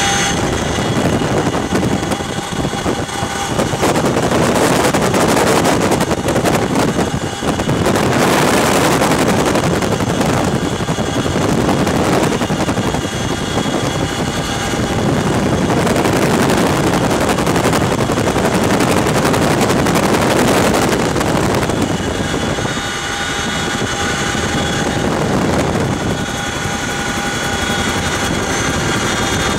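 Boeing CH-47 Chinook's twin rotors and turbine engines running loud during takeoff and climb, heard from inside the cabin, with a steady whine over the rotor noise. The level swells and eases a few times as the helicopter climbs.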